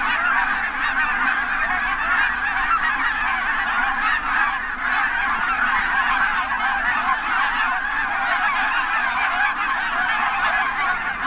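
A large flock of geese calling all at once: a dense, continuous clamour of overlapping honks.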